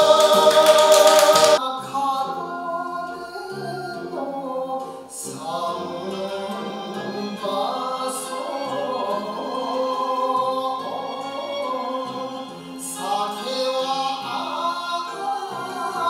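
Male vocal song with band backing: a loud held sung note over a bright, shimmering accompaniment ends abruptly about a second and a half in. A softer song then continues, with a wavering melody over a steady backing.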